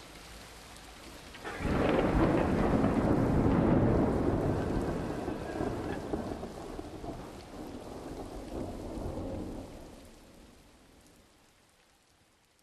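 A roll of thunder breaks suddenly about a second and a half in, a loud low rumble that rolls on for several seconds and then fades away over the last few seconds.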